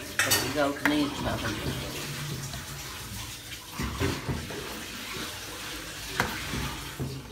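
Steel ladle stirring a pan of thin milky semolina halwa mixture, the liquid sloshing and swirling, with the ladle knocking the pan a couple of times.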